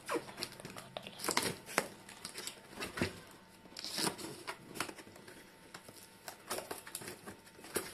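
Corrugated cardboard box being opened by hand: irregular crinkling, rustling and tearing as the flaps are pried up and pulled back.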